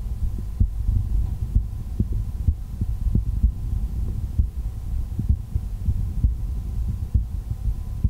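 A heartbeat heard through the bell of an MDF ProCardial cardiology stethoscope: regular low thumps about once a second over a steady low rumble.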